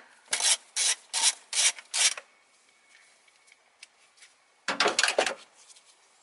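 Ratchet with a 10 mm socket on an extension loosening an engine-cover nut: five quick ratcheting strokes, about two a second, then a short cluster of ratchet clicks and rattles about five seconds in.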